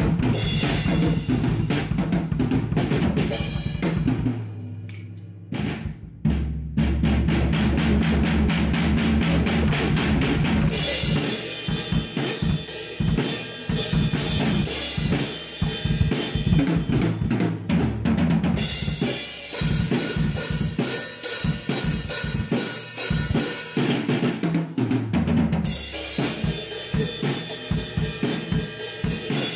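Drum kit played in a steady groove with fills: bass drum, snare and toms under Meinl cymbals. The kit has freshly replaced and tuned heads, with Moon Gel dampening pads on the toms. There is a short, quieter break about four seconds in before the beat picks up again.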